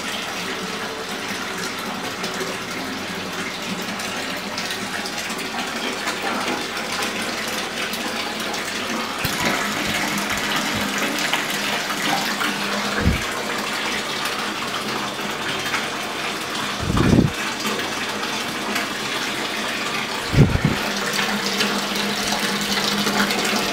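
Bathtub filling from the faucet: water pouring steadily into the tub. A few dull low thumps come in the second half.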